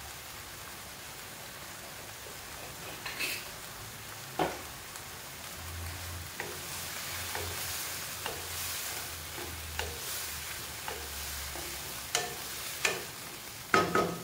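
Wooden spatula stirring chicken and pineapple pieces through a sizzling sauce in a non-stick pan. The sizzle is steady and grows a little louder in the middle, with a few short knocks of the spatula against the pan.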